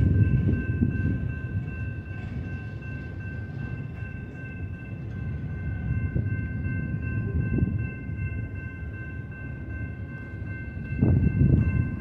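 Double-stack intermodal freight train rolling past: a low rumble of steel wheels on rail with scattered clacks, over a steady high squealing tone, and the rumble swells near the end.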